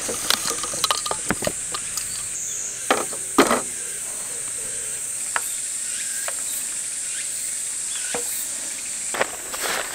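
Insects trilling steadily in a high band, over the clicks and light knocks of small camping lamps being lifted out of a padded case and set down on a table, the two loudest knocks about three seconds in.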